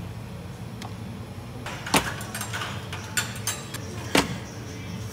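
Ice cream being scooped and packed into a paper tub: two sharp knocks about two seconds apart, with a few light clicks between them, over a steady low hum.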